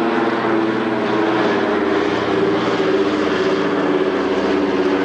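A vehicle's engine runs steadily at an even speed close by, its drone wavering slightly in pitch.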